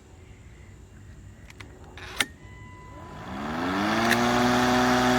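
A click, then the Greenworks 40V cordless lawn mower's electric motor and blade start up: a whine that rises in pitch for under a second and levels off into a steady hum.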